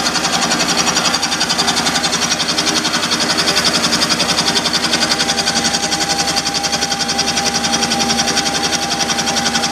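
Vertical milling machine's end mill cutting an aluminum block, running steadily with a rapid, even pulsing as the cutter takes its pass. A thin, steady whine comes in about halfway through.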